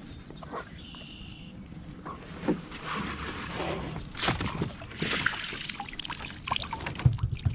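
Water splashing and sloshing with irregular knocks and rattles on a kayak as a hooked snakehead is landed and handled aboard. A few heavier thumps come near the end.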